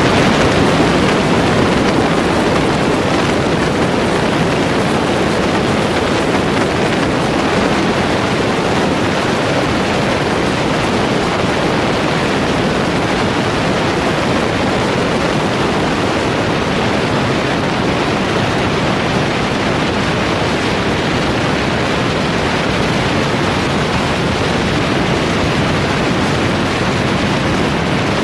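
Steady, loud rush of wind across the microphone of a camera riding on the roof of a moving car, mixed with the car's road noise.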